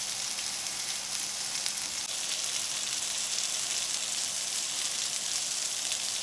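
Whole koi fish sizzling in mustard oil on a hot cast iron grill pan: a steady hiss with fine crackles.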